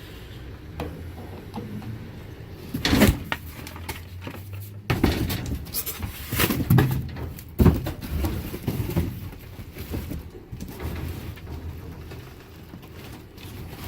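Rummaging through cardboard boxes and trash in a dumpster: scraping and rustling with irregular sharp knocks and clatters, loudest about three seconds in and again a few seconds later.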